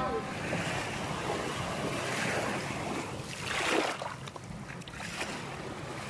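Small waves washing up onto a sandy shore, with wind buffeting the microphone. The wash swells twice, about two seconds in and more strongly near four seconds.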